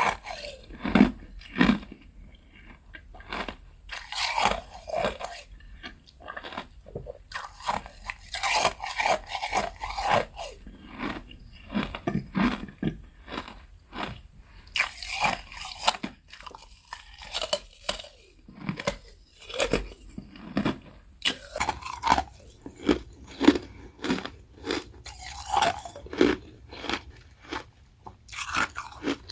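Ice being bitten, crunched and chewed close to the microphone, in a run of irregular crunches with louder clusters of bites and softer chewing between them.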